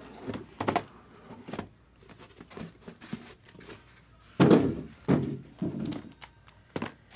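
A run of irregular dull thunks and knocks from objects being handled, the loudest about four and a half seconds in.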